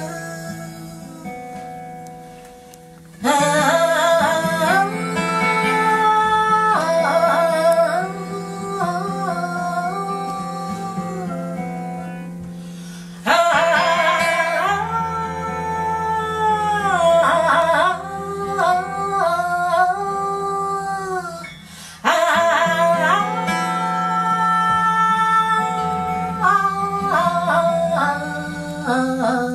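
Live acoustic jazz: a female vocalist sings long, gliding held phrases over acoustic guitar and double bass. The phrases come in sharply about 3, 13 and 22 seconds in.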